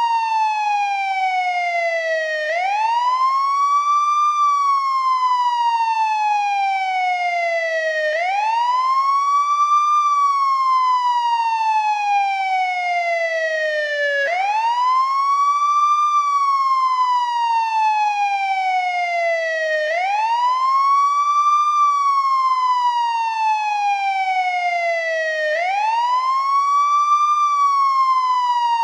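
Old-model American ambulance siren on its wail tone: the pitch rises for about two seconds, then falls slowly for about four, in a cycle that repeats about every six seconds, some five times over.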